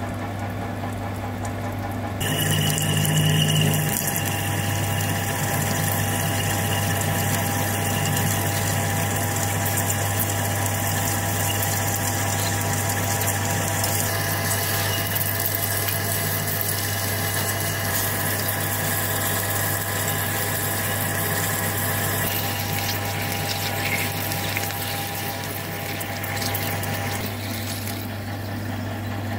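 Metal lathe running while a large twist drill in the tailstock cuts into solid stainless steel bar, with cutting fluid pouring over the drill. A steady machine hum throughout, with the louder cutting and coolant noise coming in about two seconds in.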